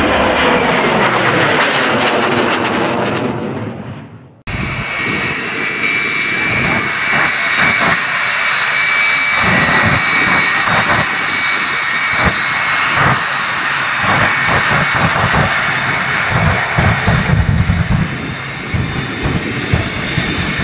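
Twin jet engines of a jet-powered truck running at full power with afterburner flame: a loud, steady jet roar with a high whine and many sharp crackles and pops as the truck runs down the runway. It starts abruptly about four and a half seconds in, after an opening sound fades out.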